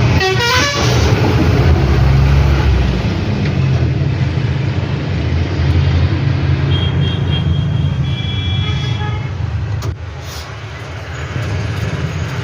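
Bajaj Maxima auto rickshaw's single-cylinder engine running steadily, with the 'kach kach' clatter that the mechanic puts down to the timing chain. Short horn toots sound a few times around the middle, and the engine note drops briefly after a click about ten seconds in.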